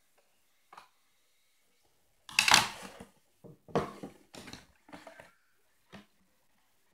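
Paper box being handled and folded on a wooden tabletop: rustling and crinkling of the paper with light knocks against the table. The loudest rustle comes about two and a half seconds in, followed by several shorter ones and a single tap near the end.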